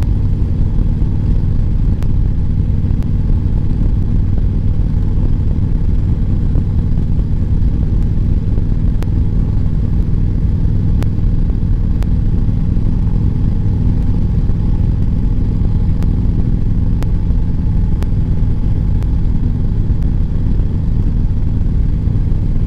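Motorcycle engine running steadily at cruising speed on the road, with wind and road rush on the rider's microphone.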